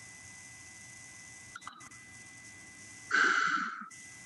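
Steady hum and hiss of a video-call audio line with a constant high-pitched tone, broken by a couple of faint clicks about a second and a half in and a short, louder burst of sound about three seconds in that cuts off suddenly.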